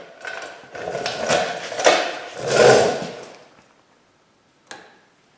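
Pliers working a steel cotter pin on the axle nut: scraping and clinking metal as the pin's legs are bent over. The sound runs for about three seconds, then goes quiet apart from one short click near the end.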